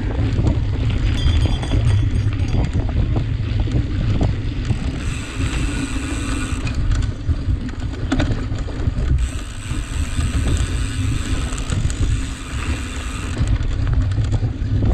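Wind buffeting the microphone of a camera riding along on a cyclocross bike at race pace, with rattles and knocks from the bike running over rough ground. Two stretches of brighter hissing come through in the middle.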